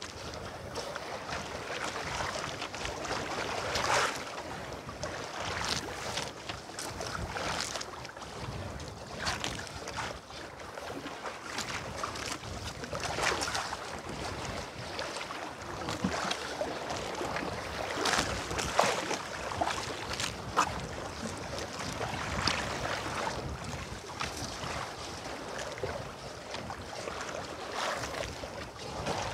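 Sea water lapping and splashing irregularly against a small boat at sea, with some wind on the microphone.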